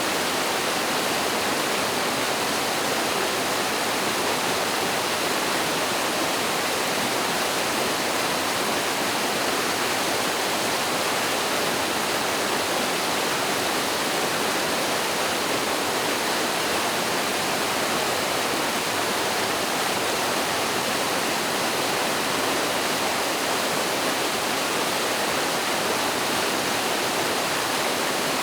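Mountain valley stream cascading over a waterfall: a steady, even rush of water with no breaks.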